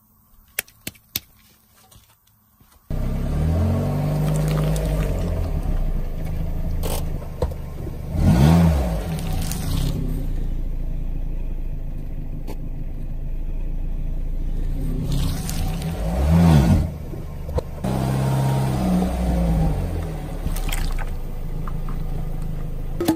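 A few light clicks of a plastic box being handled. Then, from about three seconds in, a car engine running, its pitch swelling up and down several times as the car rolls its tyre over a jelly-filled plastic box and crushes it.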